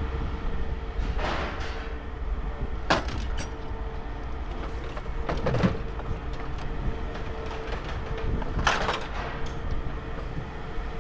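Scrap metal being handled, with a few clanks and scrapes a couple of seconds apart over a steady low rumble.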